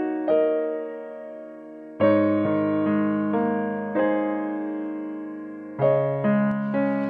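Background piano music: slow chords struck every second or two, each ringing and fading before the next.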